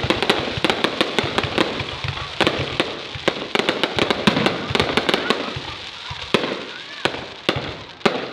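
Fireworks going off: a dense run of sharp cracks and bangs, many a second, that thins out toward the end.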